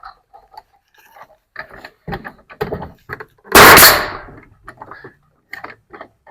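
Bostitch pneumatic coil siding nail gun firing once, about three and a half seconds in, driving a nail into a wooden wall board. A few light knocks come before and after it.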